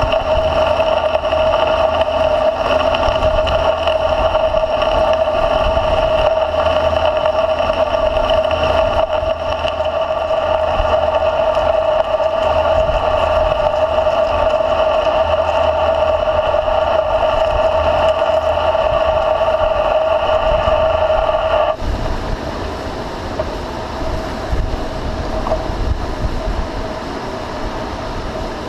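American Pacemaker engine lathe turning a large hydraulic cylinder under a grooving cut, with a loud steady whine over a low rumble. The whine cuts off suddenly about three-quarters of the way through, leaving the lathe's lower running noise.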